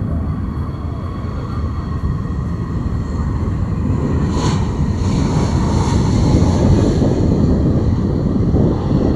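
Lockheed Martin C-130J-30 Hercules' four turboprop engines running: a heavy low rumble with a faint steady whine on top, growing louder from about four seconds in.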